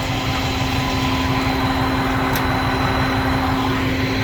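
Big rig's diesel engine running at a steady speed, a constant low drone with a steady hum over it.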